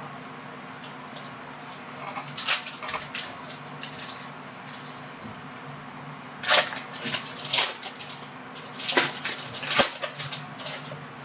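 Panini Prizm basketball trading cards being handled: short scrapes and clicks in three quick clusters as cards slide against each other. A faint steady hum runs underneath.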